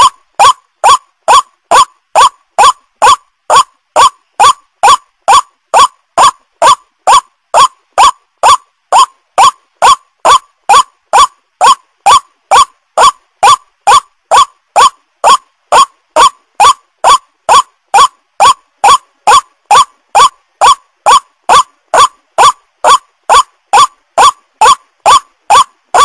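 White-breasted waterhen (ruak-ruak) calling: a loud, short rising note repeated evenly about twice a second, as in a looped lure-call recording played to draw waterhens in.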